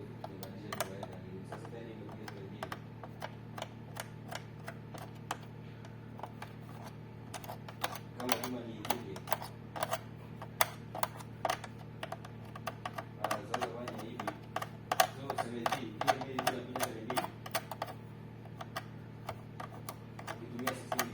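Irregular light clicks and taps, dense in places, like small tools and parts being handled on a workbench, over a steady low electrical hum, with faint voices in the background.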